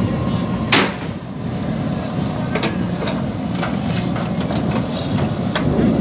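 JCB backhoe loader's diesel engine running steadily under load while the backhoe arm and bucket work soil. A sharp clank sounds about a second in, and a few lighter knocks follow.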